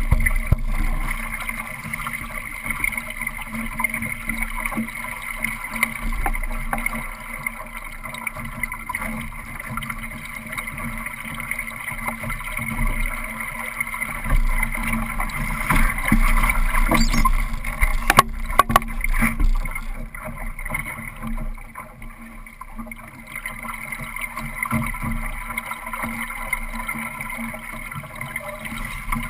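Water rushing and slapping along the hull of a Solo sailing dinghy under way, with wind buffeting the camera microphone in a low rumble. A couple of sharp knocks come about eighteen seconds in.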